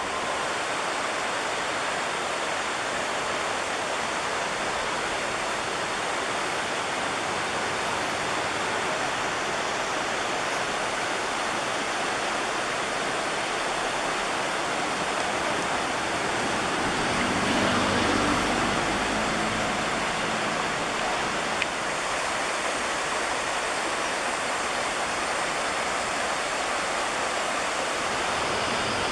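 Steady rushing of a shallow, rocky river flowing over stones and riffles. A low hum swells and fades about two-thirds of the way through.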